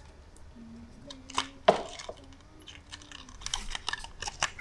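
Plastic and cardboard lure packaging being handled as a jig is worked out of its plastic insert: a few sharp clicks and crackles, the loudest about a second and a half in, then a quick run of small clicks near the end.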